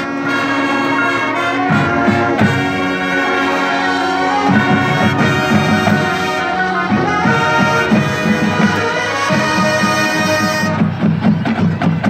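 Marching band playing a brass-led passage of loud, sustained chords; about four seconds in, a choppier low line comes in underneath.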